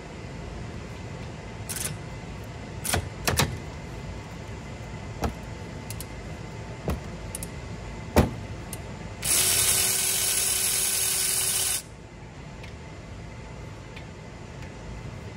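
Metal tools clinking and knocking against a car's front brake assembly, the sharpest knock about eight seconds in, then a power tool running steadily for about two and a half seconds and stopping suddenly, loosening the brake caliper bolts.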